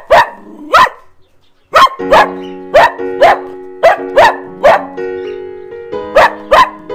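A dog barking repeatedly in short, sharp barks, about two a second, over background music with steady held chords that come in about two seconds in.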